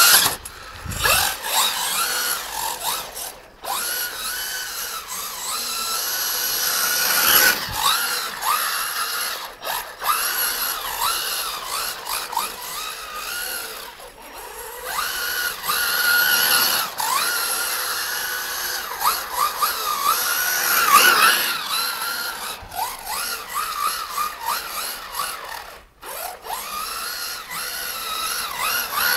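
Brushless electric motor of an Xray XB8 RC buggy, running a Mamba Max system on a 3S battery, whining under throttle, its pitch rising and falling again and again as it is revved and let off.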